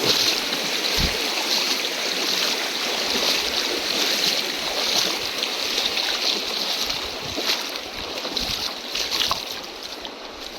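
River water rushing, a steady hiss that thins out and gets quieter over the last few seconds.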